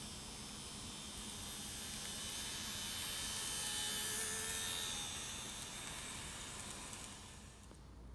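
N-gauge model of a JR Kyushu 415 series train running on the track: the small motor's buzz and the wheels' hiss grow louder to a peak about four seconds in as it passes close by, then fade.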